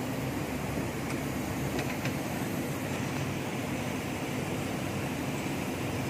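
Steady low mechanical hum, with a few faint light clicks about one and two seconds in.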